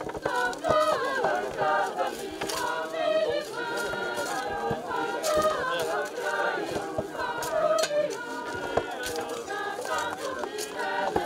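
A choir of mixed voices singing unaccompanied, with a few short knocks and scrapes from shovels working soil.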